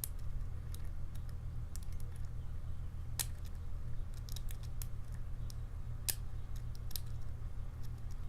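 Lock pick and tension wrench working the pins of a challenge padlock: scattered faint metallic clicks and ticks at uneven spacing, over a steady low hum.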